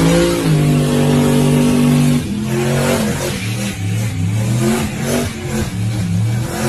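Car engine revved hard and held high for about two seconds, then its pitch jumps up and down repeatedly as the throttle is worked. It is a burnout, with smoke from the tyres.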